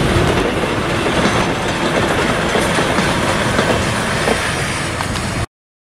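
Volks Electric Railway car running past along its track, a steady rail-running noise that cuts off abruptly about five and a half seconds in.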